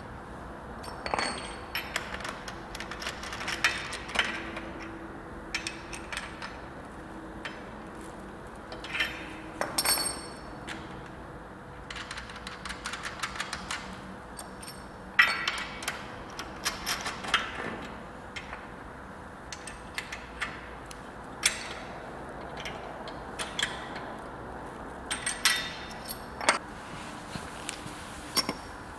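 Irregular metallic clinks, taps and knocks of a box spanner, bolts and brackets against the steel frames of a forklift sweeper broom during assembly, a few strikes ringing briefly.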